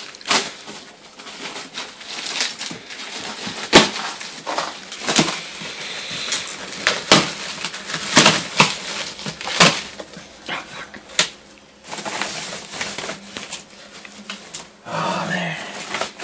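Cardboard guitar box and its packing material being opened and handled: an irregular run of crackles, rustles and sharp knocks.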